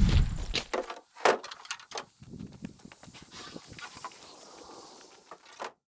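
Scattered wooden knocks, scrapes and footsteps as freshly sawn oak boards are lifted and handled. The sound cuts off abruptly near the end.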